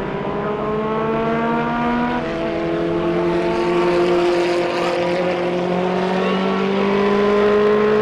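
1960s historic formula racing car's engine accelerating hard, its revs climbing, dropping sharply once about two seconds in at an upshift, then climbing steadily again.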